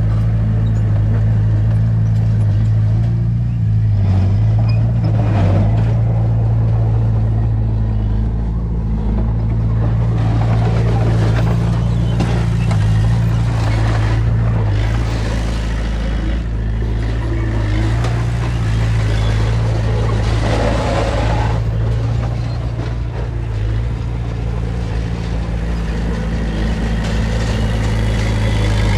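Heavy diesel engine of earthmoving machinery running steadily at an even low pitch, with stretches of rattling, scraping noise over it several times.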